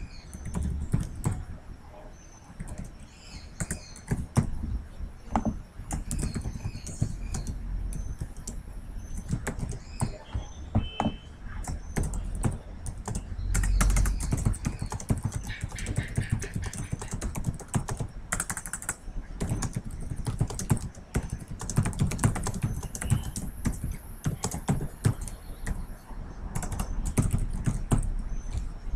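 Typing on a computer keyboard: a long, uneven run of quick key clicks with short pauses between bursts.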